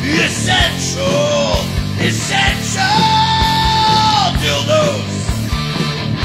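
Punk rock song with electric guitar, drums and a yelled male vocal, which holds one long note about three seconds in.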